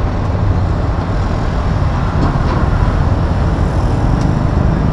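Steady rumble of street traffic with no speech.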